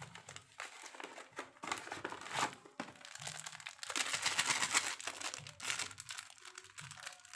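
A small plastic sachet of pandan-scented carp bait additive crinkling in the hands and being torn open, a dense run of crackles that is loudest a little past the middle.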